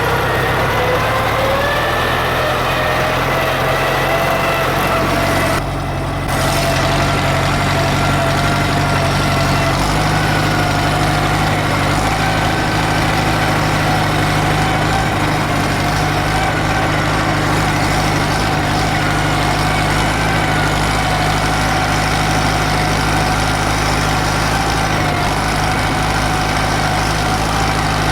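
Valmet 85 ID tractor's diesel engine running steadily under load while pulling a disc harrow, with a brief dip in loudness about six seconds in.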